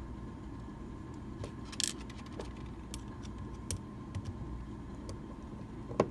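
Small metallic clicks and ticks of a Medeco lock cylinder and a metal tool being handled as the lock is taken apart: a brief cluster of clicks about two seconds in, scattered single ticks after it, and two sharper clicks at the very end, over a faint steady hum.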